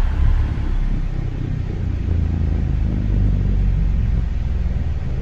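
A steady, deep rumbling drone with no speech, the dark ambient sound bed of a stop-motion horror fight video playing back.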